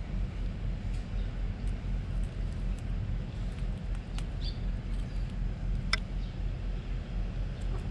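Steady low outdoor rumble, with a few faint bird chirps about four seconds in and a sharp click about six seconds in.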